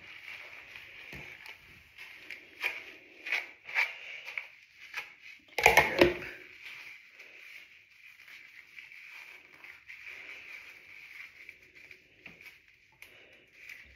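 Shampoo-lathered wet hair being finger-detangled: soft squishing and crackling handling noises over a steady hiss, with a louder knocking clatter about six seconds in.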